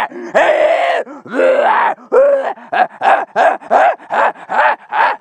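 A man's voice growling and roaring in the voice of a raging demoness: two long, raspy growls, then a run of short snarling roars at about three a second.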